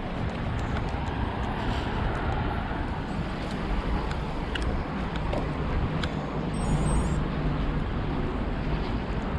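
Steady road traffic noise from passing cars, heard from a moving bicycle, with the bike's own rolling noise and a few faint light clicks.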